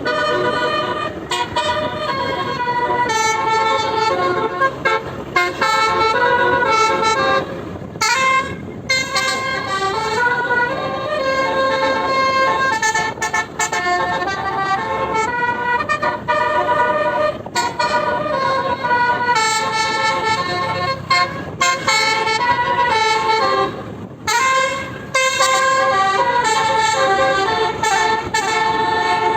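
Bus Basuri telolet multi-tone horn playing a long run of melody, its tones stepping from pitch to pitch and breaking off briefly a few times.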